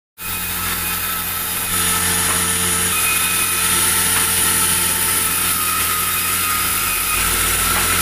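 Sawmill machinery running steadily, a low hum with a high whine over it, growing a little louder about two seconds in.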